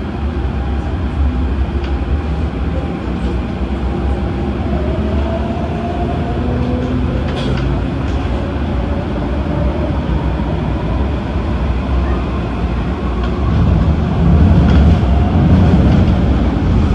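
Adtranz-CAF electric multiple unit train running: a steady rumble of wheels on rail under a motor whine whose pitch slowly glides. It grows louder about three-quarters of the way through.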